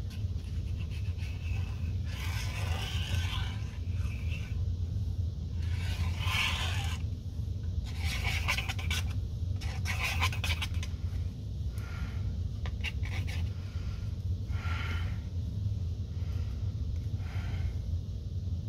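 Sheets of cardstock rustling and scraping as they are handled and slid over a cutting mat, in about seven short bouts, over a steady low hum.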